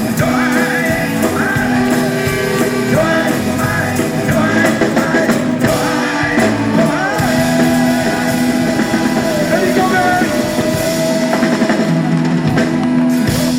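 Live rock and roll band playing an instrumental passage: drum kit and bass under a lead melody line that bends and slides in pitch.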